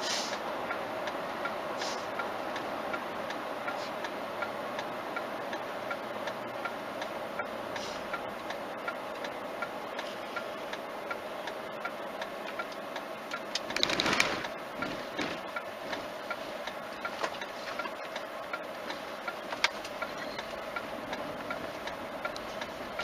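A car heard from inside the cabin as it drives and slows down: steady engine and road noise with a light, regular ticking throughout. There is a brief louder rush about fourteen seconds in.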